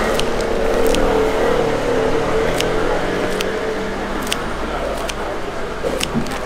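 A motor vehicle's engine running, a steady hum that fades out about four seconds in, with a few light clinks of utensils.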